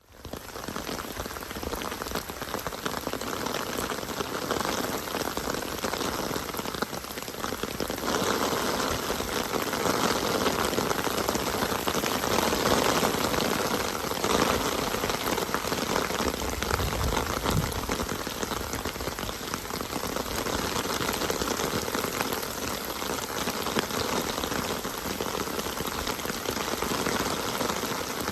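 Steady rain falling, a dense even patter that fades in at the start and grows fuller about a third of the way in.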